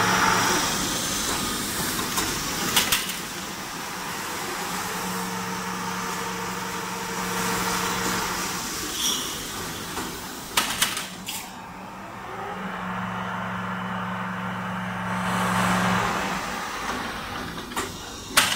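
Aluminum handle forming machine running, its electric motor and hydraulic unit humming. The hum swells twice for a few seconds at a time, and a few sharp metal clanks come about three seconds in, around eleven seconds and near the end as aluminum bars are handled.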